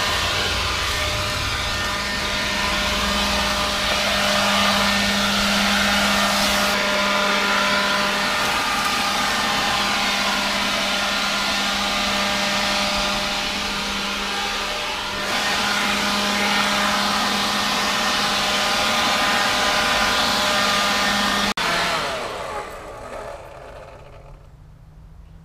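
Leaf blower running steadily, a constant motor hum under a loud rush of air. It is switched off about three-quarters of the way through and winds down over a couple of seconds.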